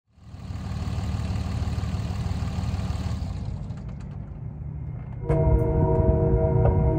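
Low rumbling noise, then about five seconds in a horn starts sounding a steady chord of several notes.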